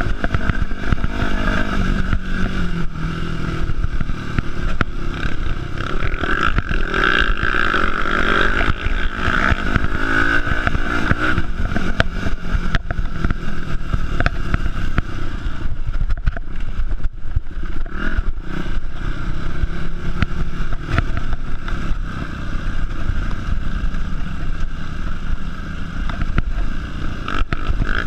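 Yamaha four-stroke single-cylinder dirt bike engine heard from on board, running under changing throttle so its pitch keeps rising and falling. Short knocks and clatter from the bike run through it as it rides over a bumpy dirt trail.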